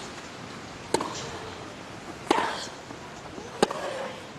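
Tennis ball struck by rackets during a rally: three sharp hits about 1.3 seconds apart.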